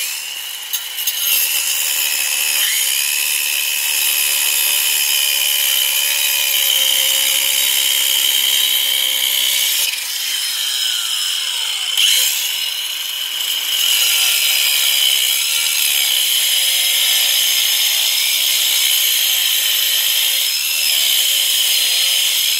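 Sturm AG9020CL battery-powered angle grinder, running off a 12-volt battery, cutting through brick with a diamond disc: a steady high grinding whine that wavers as the disc is pressed into the brick. About ten seconds in the motor's pitch falls, then it picks up again about two seconds later.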